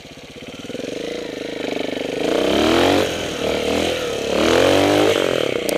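Trials motorcycle engine revving in repeated rises and falls of pitch, getting louder about two seconds in.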